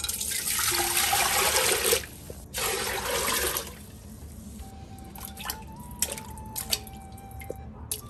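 Water poured into an aluminium pressure cooker pot, in two pours, splashing onto the water already in it. From about halfway, soft background music plays, with a few short splashes and taps.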